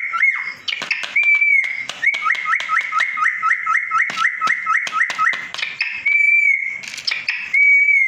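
Indian ringneck parakeet whistling: a long whistle, then a quick run of about a dozen two-note whistles, each stepping down in pitch, about three a second, then two more long whistles near the end. Sharp clicks sound throughout.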